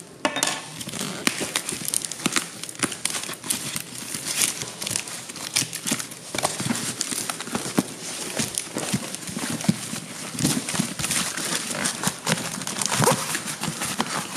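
Packing tape and plastic shipping wrap being torn and peeled off a cardboard box, a dense run of irregular crackles and rips, with the cardboard rubbing and knocking as the box is handled.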